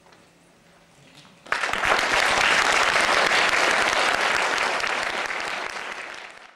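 Audience applauding, breaking out suddenly about one and a half seconds in after a near-quiet pause, easing a little near the end and then cutting off abruptly.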